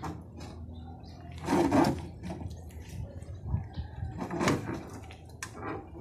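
Hand tools working on the underside of a VW Beetle's engine during its removal: irregular metal clicks and clatter, loudest about a second and a half in and again at about four and a half seconds.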